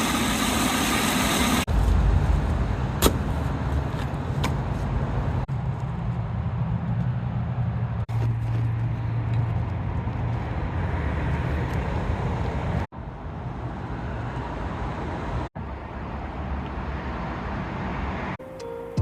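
A steady, low engine-like rumble, broken by abrupt cuts into several short stretches.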